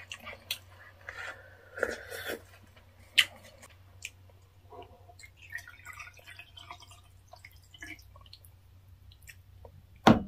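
Soju being poured from a glass Jinro bottle into a small shot glass, a liquid gurgle lasting a few seconds in the middle, with a sharp knock near the end as the bottle comes down on the table. Small wet chewing and clicking sounds of eating come in the first few seconds.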